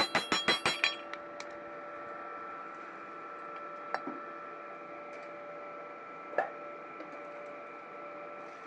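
Rapid hammer taps on metal, about five or six a second, stopping about a second in; then a steady hum with a few faint clicks and one sharper click past the middle.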